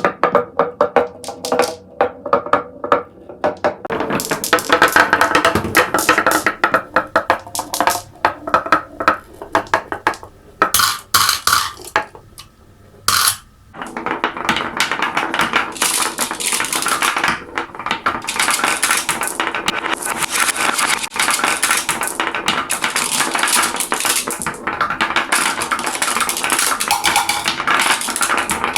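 Marbles rolling and clacking down a marble run: quick knocks with a pitched ringing in the first half, a short lull a little before halfway, then a dense continuous rattle of many marbles on the track.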